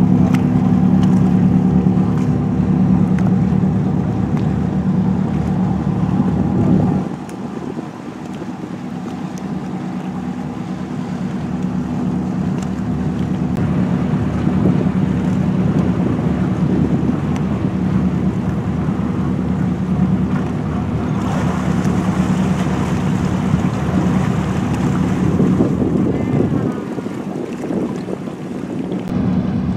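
Motorboat engine running under way with a steady drone. It eases off about seven seconds in, then slowly builds again, and dips once more near the end.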